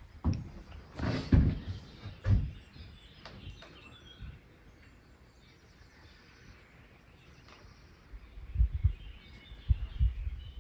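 Birds chirping faintly in the background, with a few dull low thuds in the first couple of seconds and again near the end.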